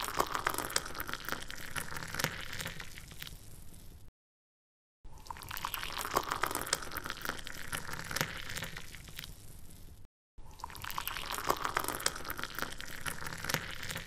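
Falling water splashing and trickling, full of small drip-like splashes, in a short recording played over and over. Each pass cuts off to dead silence: for about a second some four seconds in, and briefly about ten seconds in.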